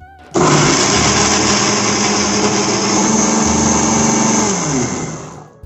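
Electric mixer grinder (mixie) grinding coconut pieces with sugar and a little water. The motor starts abruptly just after the start and runs loud and steady. Near the end it is switched off and winds down, its pitch falling.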